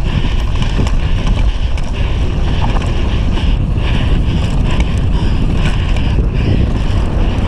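Downhill mountain bike at speed on a dry, loose dirt track: steady rumble of knobby tyres and bike with wind buffeting the microphone.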